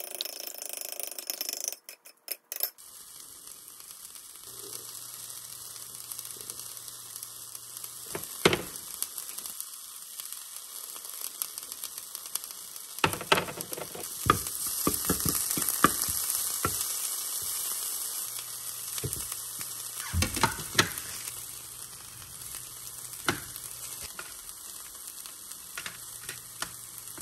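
Food sizzling steadily in a hot frying pan, with sharp clicks and scrapes now and then as it is stirred and turned.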